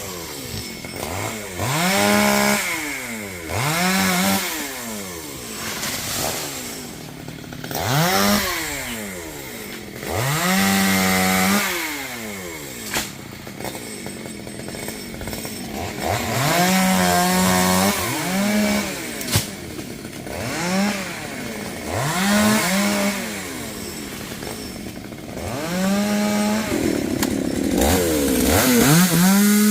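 Two-stroke chainsaw cutting into a melaleuca tree, its engine revving up to full speed, holding for a second or two, then dropping back to idle, about ten times over.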